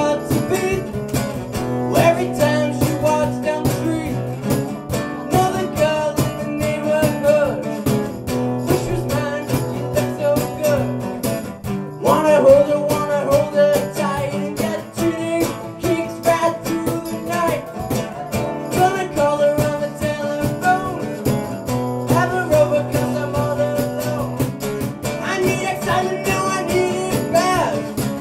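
A young man singing into a microphone while strumming chords on an acoustic guitar, a live solo performance of an upbeat rock song.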